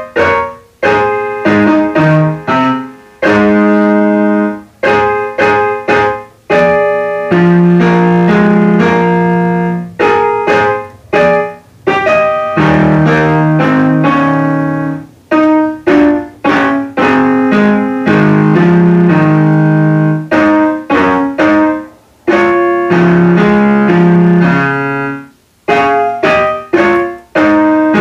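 Portable electronic keyboard played with both hands in a piano voice: held chords under a melody, with the sound cutting off briefly between phrases.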